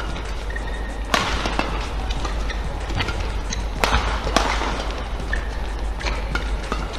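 Badminton rally: sharp cracks of racket strings hitting the shuttlecock. The loudest hit is about a second in, with two more close together around four seconds in, and fainter ticks between them over a steady hum in the hall.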